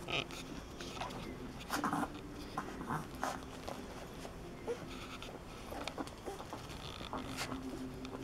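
Two-week-old Alapaha Blue Blood Bulldog puppies nursing from their mother: faint suckling clicks and smacks, with a few short, soft squeaks and grunts.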